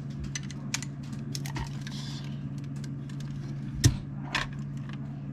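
Lego bricks clicking and clattering as pieces are handled and pressed together, with a louder click about four seconds in.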